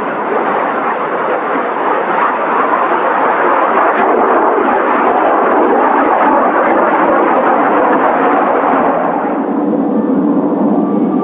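Kawasaki T-4 jet trainer taking off: a loud, steady jet engine rush that swells to its peak around the middle, then eases as the higher part of the sound fades near the end.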